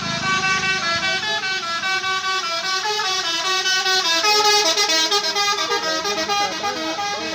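Basuri telolet horn on a bus playing a quick multi-note tune, the pitch jumping from note to note several times a second.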